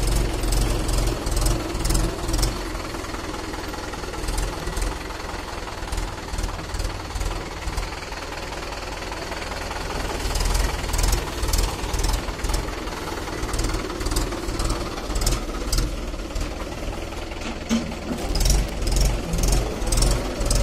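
Mahindra 475 DI tractor's diesel engine running with a steady knocking clatter in a regular beat. The clatter grows stronger for a few seconds about halfway through and again near the end.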